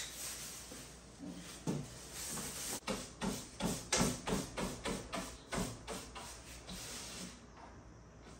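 Broom sweeping dust and debris across a wooden plank worktop, with a run of quick brushing strokes, about three a second, in the middle.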